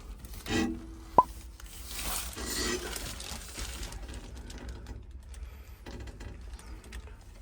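Soft handling and rustling noises with a sharp click about a second in.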